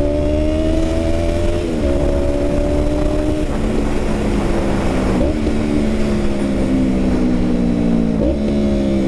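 Yamaha MT-03's 321 cc twin-cylinder engine through a new full free-flow exhaust, running as the bike is ridden. Its pitch sags slowly and shifts abruptly about 2, 5 and 8 seconds in.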